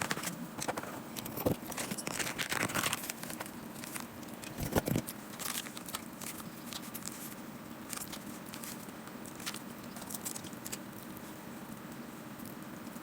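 Crinkling and crackling handling noises of food and its wrapper, busiest in the first five seconds, then fewer and fainter crackles over a low steady hum.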